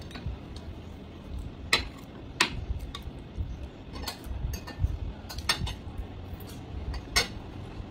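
A spoon clinking and scraping against ceramic plates and bowls while food is served and eaten: several sharp, separate clinks, the loudest about two seconds in and near the end.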